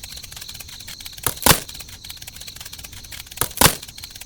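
Two pairs of sharp knocks about two seconds apart, over a steady hiss with a faint constant high tone.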